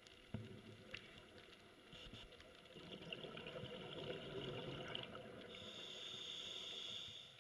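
A scuba diver's breathing heard underwater: a bubbling rumble on the exhale, then a steady hiss from the regulator on the inhale about five and a half seconds in that stops near the end, over scattered faint clicks.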